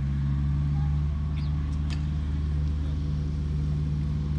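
Steady low motor drone, with a couple of faint clicks about a second and a half in.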